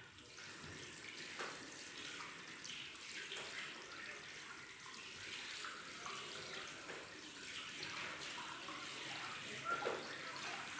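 Tap water running steadily into a sink during handwashing, a hissing splash with small irregular changes as the hands move under the stream.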